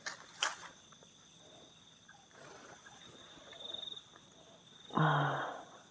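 Night insects such as crickets trilling steadily in high tones, one of them pulsing, with a few light clicks at the start and soft clothing rustle. About five seconds in comes a short breathy sigh.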